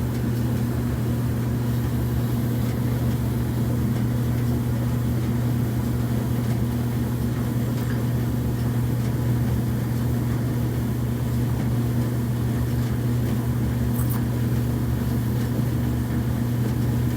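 Kenmore gas dryer running: a steady low hum from the drive motor and blower with the drum turning, unchanging throughout, with one faint tick near the end.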